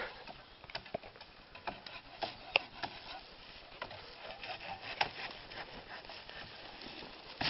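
Irregular wooden cracks, knocks and rubbing as a thin felled tree trunk is handled and shifted through the brush.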